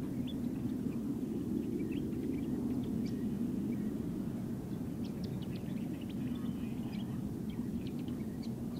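Low, steady rumble of an Airbus KC-30A's General Electric CF6 jet engines as the tanker rolls out along the runway after landing, with small birds chirping over it, more often in the second half.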